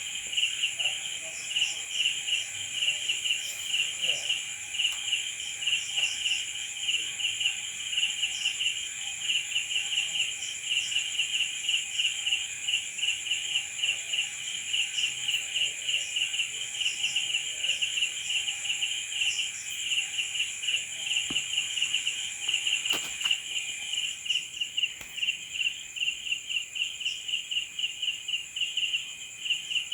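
Crickets chirping at night in a dense chorus: a fast, continuous pulsing chirp, with a steady high-pitched insect trill above it.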